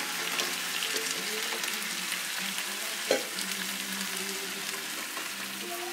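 Fresh mussels sizzling steadily in hot oil in a stainless sauté pan, just tipped in on top of cooking shallots and celery. One sharp click about three seconds in.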